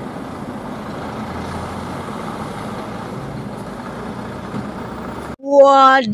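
Diesel engine of a concrete mixer truck running as it drives slowly, over steady street traffic noise. About five seconds in it cuts off abruptly, and a loud held vocal cry starts.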